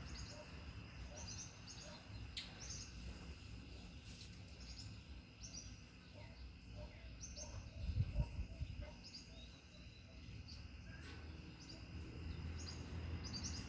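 Wind rumbling on the microphone, with a stronger gust about eight seconds in, and short high bird chirps every second or two.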